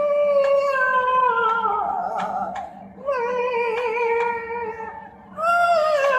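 A person's voice imitating a demon cat's yowl: three long, high, wavering wails, each sliding down in pitch.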